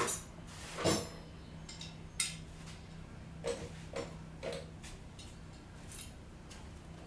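Hand tools and loose metal parts clinking and knocking while a bracket's bolts are worked loose: about half a dozen separate sharp taps and clicks, irregularly spaced, over a faint steady hum.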